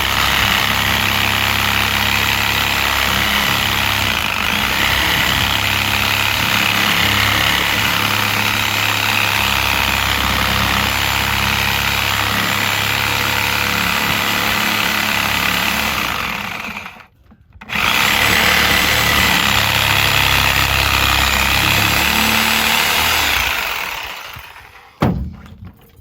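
Reciprocating saw (Sawzall) running as it cuts through old tire rubber on a split-rim wheel. It stops briefly about two-thirds of the way through, runs again, then stops near the end, followed by a single sharp knock.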